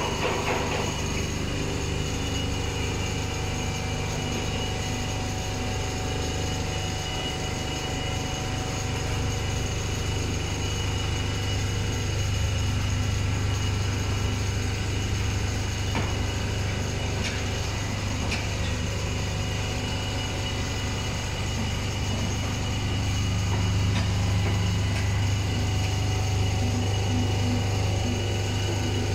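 A Richpeace computerized quilting machine running, its sewing head stitching across stretched fabric: a steady mechanical low hum with a thin high whine over it.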